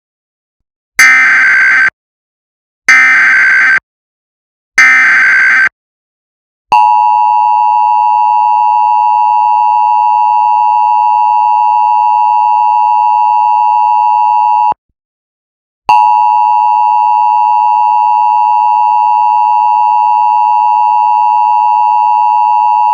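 Emergency Alert System tones: three short bursts of the SAME digital header, screeching data tones, then the two-tone EAS attention signal sounding steadily for about eight seconds, breaking off for a second, and starting again.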